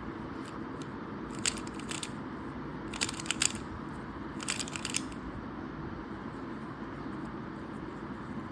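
Plastic Rubik's Cube clicking as its layers are turned by hand: short clusters of sharp clicks with pauses between them.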